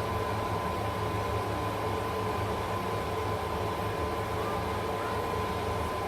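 Steady background hiss with a low hum and a thin, constant high whine, unchanging throughout.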